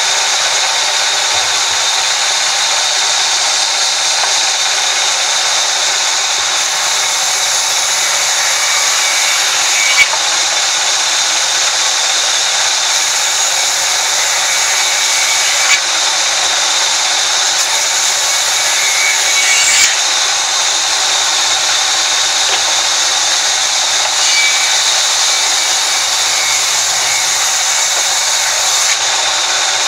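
Sawmill band saw running steadily with a loud high-pitched hiss as its blade rips through timber fed past it, with a few sharp knocks of wood being handled along the way.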